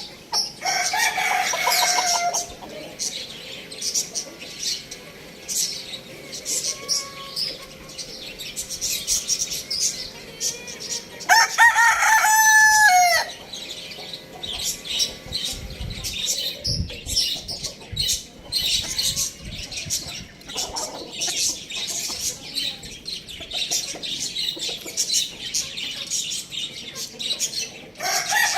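Chickens clucking, with a rooster crowing twice: once near the start and again, louder and longer, about eleven seconds in. Many short, sharp clucks and chirps fill the gaps between the crows.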